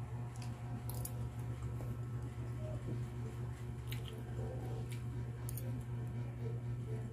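A metal spoon scooping through stew in a ceramic bowl, making a few light clicks against the bowl, over a steady low hum.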